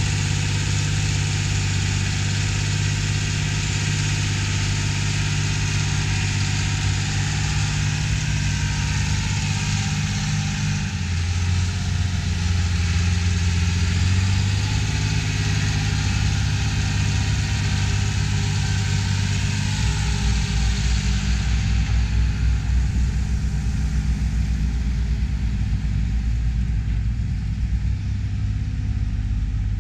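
Diesel engine of a John Deere 8000-series tractor pushing and packing corn silage on the pile, running steadily with its engine note shifting a few times as it works.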